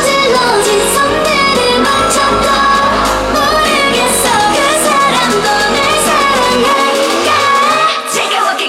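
K-pop dance song with female group vocals over a full backing track; the deep bass drops out about seven seconds in.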